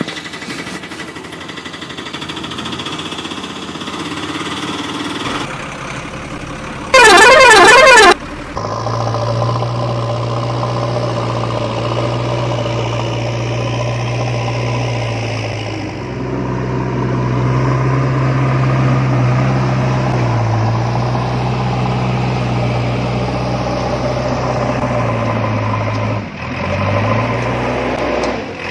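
Electronic toy-vehicle sound effects: a loud warbling, siren-like horn for about a second, then a steady low engine drone that carries on, dipping briefly twice near the end.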